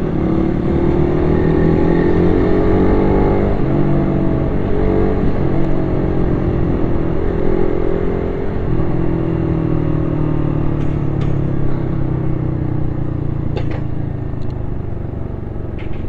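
Motorcycle engine heard from the rider's helmet mic, over steady wind rush. It revs up through a gear, drops sharply at a shift about three and a half seconds in, and climbs again. It then settles and slowly falls in pitch as the bike eases off.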